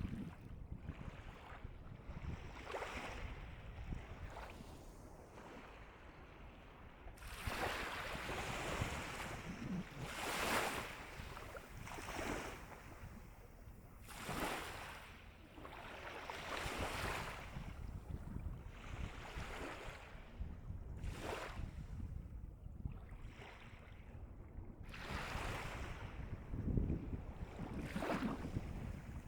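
Calm sea waves washing in, each breaking with a hiss that swells and fades every few seconds. Several larger breaks come through the middle and near the end.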